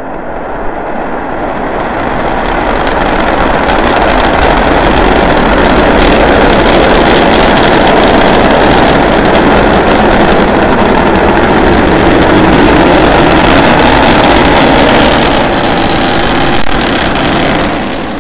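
SpaceX Starship SN9's three Raptor methane–oxygen rocket engines firing during liftoff and climb. The noisy rumble grows louder over the first few seconds, holds steady, and eases off slightly near the end.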